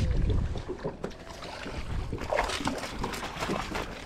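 Wind rumbling on the microphone for about the first second, then a jumble of irregular splashes and knocks as a northern pike is netted at the side of a fishing boat.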